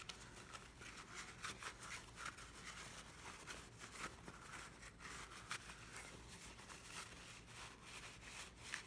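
Faint rustling and scrunching of a paper towel rubbed around inside a Glock 22's polymer lower frame, in many small scratchy strokes.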